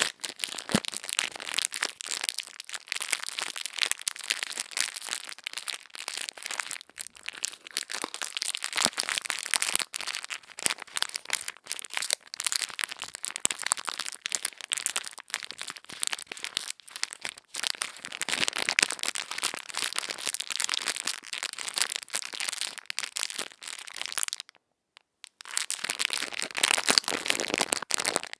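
Ear-cleaning ASMR sounds: dense, crisp crackling and scratching right at the microphone, broken by a short silence near the end.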